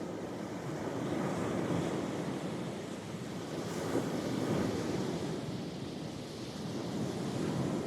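Sea waves washing onto the shore: a continuous rush of surf that swells and eases about every three seconds.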